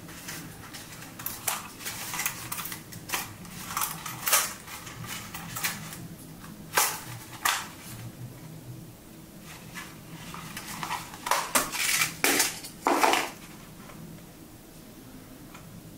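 Plastic clicks and knocks from a DJI Mini 3 Pro drone's body and folding arms being handled and swung open. They come in two bunches, the louder one a few seconds before the end.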